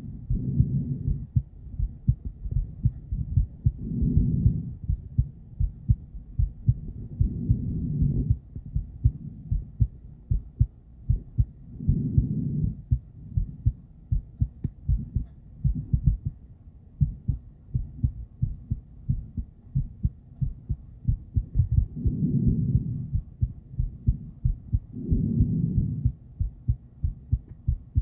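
A woman's heartbeat heard through an ultrasonic Doppler heart monitor: a steady, rapid train of low whooshing thumps, about two a second. Broader whooshing swells rise over the beats every few seconds.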